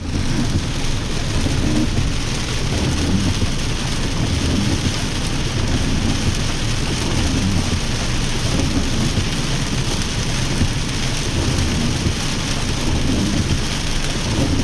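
Heavy rain falling steadily, with a constant low rumble underneath.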